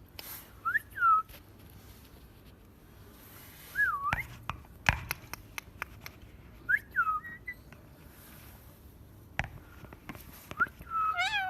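A parrot whistling short calls that rise and fall in pitch, about four of them a few seconds apart, the last the fullest. Sharp clicks are scattered between the calls.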